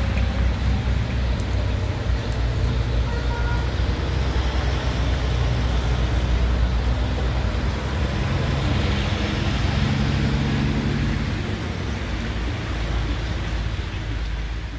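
Steady heavy rain with traffic on a wet street. A backhoe loader's diesel engine runs close by at the start, and a truck's engine passes about eight to eleven seconds in.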